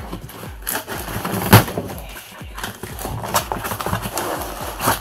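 Cardboard shipping box being opened by hand: flaps pulled apart and folded back, with irregular cardboard knocks and rustling. The loudest knock comes about a second and a half in.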